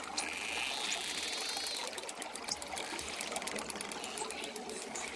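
Dolphins vocalising underwater: a short whistle, then a whistle that sweeps up and down, followed by a rapid train of echolocation clicks, over a steady watery hiss.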